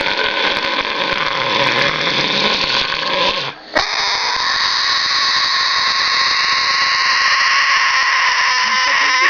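Cockatoo screeching in two long, harsh calls, broken by a short pause about three and a half seconds in.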